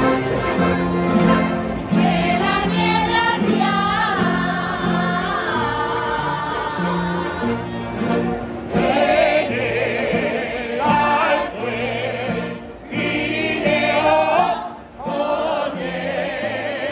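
A street group singing a folk song together in chorus, accompanied by accordions and acoustic guitars. The accordions hold steady bass notes that change every second or so under the voices.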